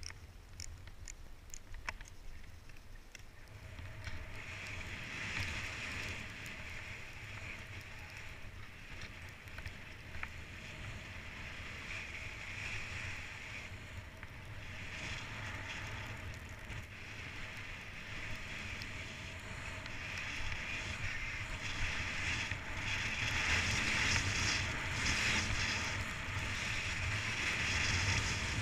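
Skis sliding and carving on packed snow, a steady hiss mixed with wind buffeting the microphone, both growing louder toward the end as speed builds. A few light clicks in the first couple of seconds.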